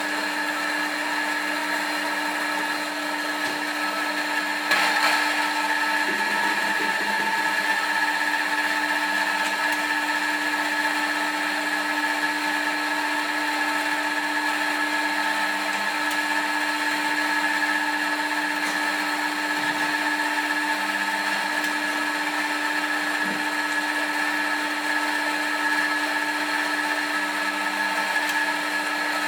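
Commercial coffee grinder's motor running steadily as it grinds coffee beans: a constant whine over a gritty grinding noise, with a brief crackle about five seconds in.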